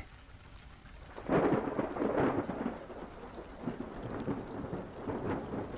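Steady rain with a rumble of thunder that swells about a second in and slowly dies away.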